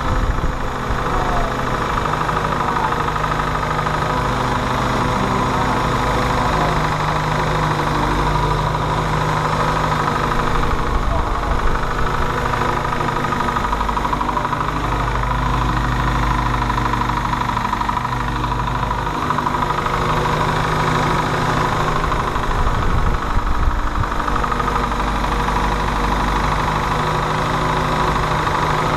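Ford GPW jeep's four-cylinder flathead engine idling steadily, its speed rising and falling slightly a few times.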